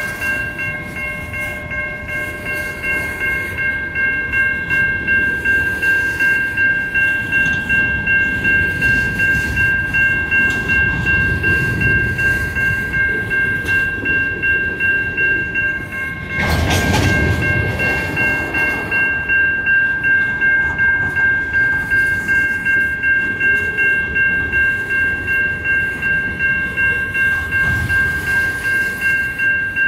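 Type 3 Safetran electronic crossing bell ringing in quick, even strikes, about two a second, over the rumble and rattle of coal hopper cars rolling through the crossing. A louder rush of rumbling noise comes about halfway through.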